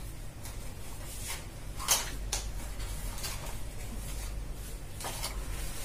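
A small retail box being handled and opened by hand: a few scattered short crinkles and taps, the loudest about two seconds in, over a low steady hum.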